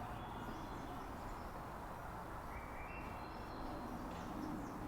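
Outdoor ambience of birds chirping: a few short calls, with one run of notes stepping upward in pitch about halfway through, over a steady low background noise.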